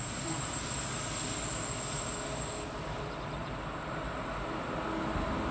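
Train hauled by a Renfe class 269 electric locomotive running past, a steady rumble.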